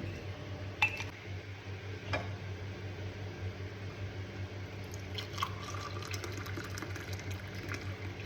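Hot besan tea being poured from the pan into cups, with a few light clinks along the way.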